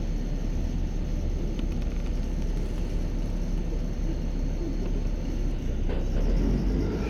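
LiAZ city bus engine running, a steady low rumble heard from inside the bus, with a short knock just before six seconds in as the rumble swells slightly.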